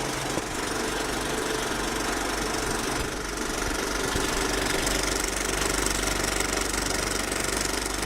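Viper 3D printer running, a steady mechanical drone of stepper motors and cooling fans with a low hum underneath.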